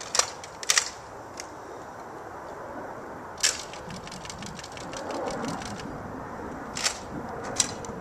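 Spring-powered Nerf Recon CS-6 foam-dart blaster being primed and fired: several sharp plastic clacks a few seconds apart, one followed by a brief run of faint ticks.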